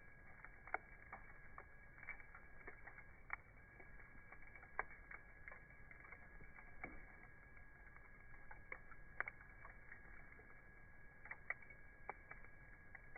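Campfire crackling: wood popping with sparse, irregular sharp cracks, a few louder than the rest, over a faint steady high whine.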